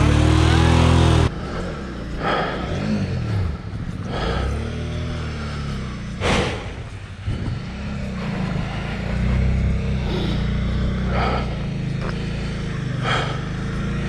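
Motorcycle engine running close up, cut off suddenly about a second in; then an adventure motorcycle, a Suzuki V-Strom, running and revving up and down in short bursts as it is worked up a deep mud track.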